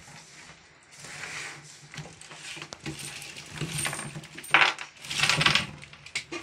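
Woven bamboo basket rustling and scraping on a wooden table as it is handled and tipped over, with lychees, twigs and leaves spilling out and knocking on the wood. The loudest rustling and clatter comes about four and a half to five and a half seconds in.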